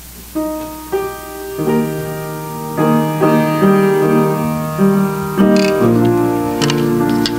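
Piano starting to play about half a second in, slow held single notes that build into fuller chords.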